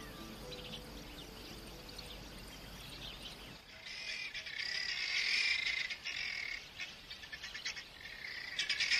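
Faint music fades out over the first couple of seconds. About a third of the way in, an outdoor chorus of many chirping bird calls sets in, loudest near the middle.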